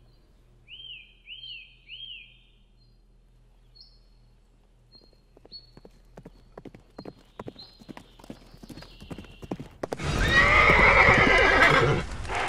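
Horse hooves clip-clopping, sparse at first and then faster and denser, followed by a loud horse whinny lasting about two seconds from about ten seconds in. Three short chirps come near the start.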